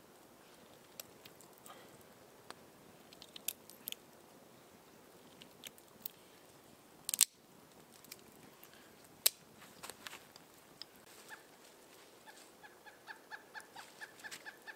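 Scattered sharp clicks and crunches from hands-on work, loudest as two cracks in the middle. Near the end a pileated woodpecker calls a rapid, even series of short notes, about six a second.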